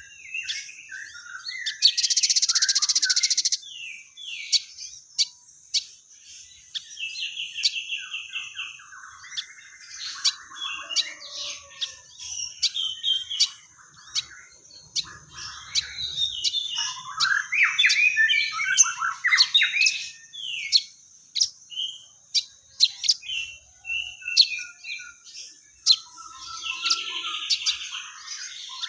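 Sogon (crested jay) singing busily: a varied run of chirps, trills and quick sweeps, with a loud harsh rattle about two seconds in. A steady high-pitched whine runs behind it.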